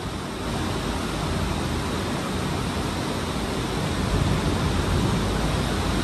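Heavy rainstorm: a steady rushing of rain and wind.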